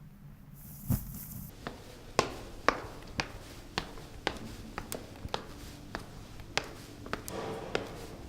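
Recorded Foley sound: a run of sharp taps, about one or two a second and unevenly spaced, with a brief hiss about a second in.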